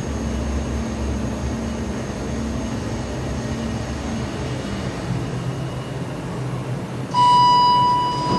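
Kone MonoSpace elevator car running down with a steady low hum and a faint high whine. About seven seconds in, a loud electronic arrival chime sounds, one steady tone that slowly fades as the car reaches its floor.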